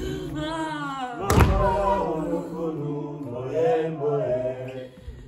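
Voices chanting in long held, wavering notes over a low steady drone, with one heavy thud about a second and a half in.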